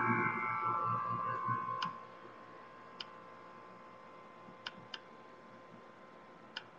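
A loud sound with steady ringing tones for about the first two seconds, then five faint, sharp clicks spread over the following seconds over a faint steady tone.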